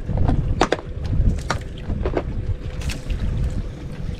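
Wind buffeting the microphone in a low, uneven rumble, with scattered light clicks and taps and a faint steady hum underneath.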